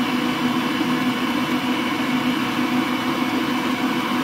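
Frigidaire stand mixer running at a steady speed, its beater mixing cake batter in the bowl.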